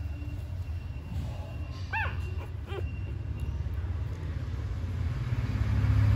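Newborn puppies squeaking: two short, high whimpers, one about two seconds in and a smaller one just after, over a steady low rumble.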